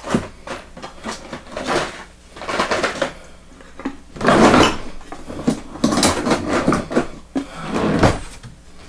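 Rummaging through a drawer of hand tools: a run of irregular knocks and metal clatters as tools are shifted about.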